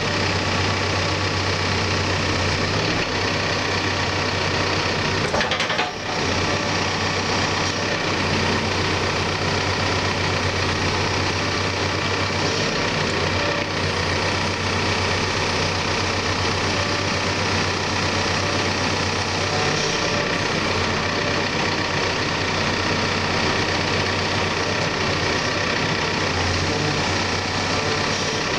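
Cat 420F backhoe loader's diesel engine running steadily, with a brief disturbance about six seconds in.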